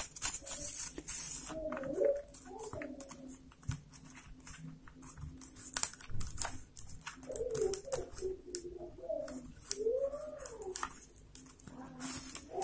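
Rolled newspaper weaving tubes clicking and rustling in the hands as stakes are bent and tucked behind their neighbours, many small irregular ticks. A few soft, low wavering tones sound in between, near the start and again past the middle.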